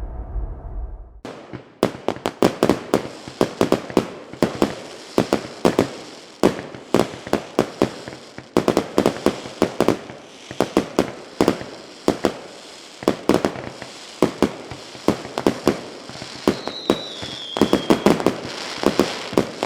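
Fireworks going off in a rapid, uneven string of sharp bangs, several a second, each with a short echo, starting after about a second of music. A brief falling whistle sounds among the bangs near the end.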